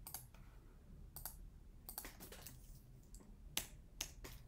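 Faint, scattered clicks of a computer keyboard and mouse: several single keystrokes and clicks at uneven intervals as a number is typed into a field.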